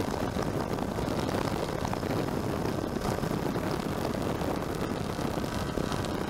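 Steady drone of a helicopter's engine and rotors, heard from on board, unchanging in level.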